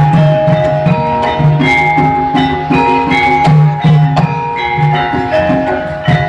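Javanese gamelan ensemble playing: struck bronze metallophones ring out a melody in steady, even strokes, several notes a second, over repeated low strokes.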